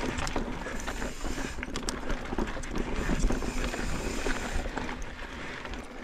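Mountain bike riding over a rough dirt and rock trail: tyres rolling on loose ground, with scattered clicks and rattles from the bike, under a low rumble of wind on the camera microphone.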